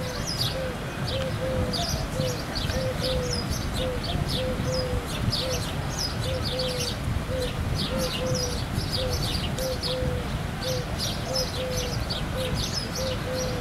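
Small birds chirping busily in quick high chirps, with a short low note repeating about twice a second, over a steady low rumble.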